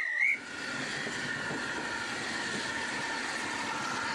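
A whistle blast cuts off just after the start, then a steam train gets under way: the steady running noise of a steam locomotive hauling carriages past a platform.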